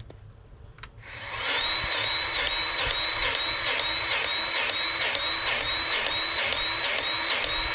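Battery-powered grease gun motor running, pumping grease into a tractor grease fitting in an even pulse of about two and a half strokes a second; it starts about a second in.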